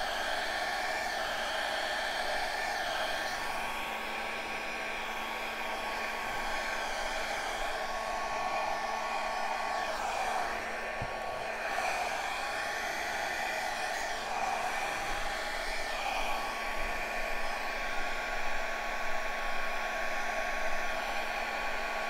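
Handheld hair dryer running continuously with a steady whoosh and a faint hum, blowing air across wet acrylic pour paint on a canvas.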